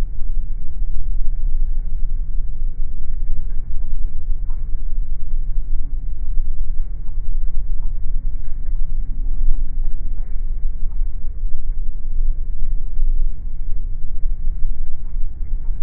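Jet airliner cabin noise heard from a window seat over the wing: a steady low rumble of the engines and wheels as the plane taxis slowly on the runway.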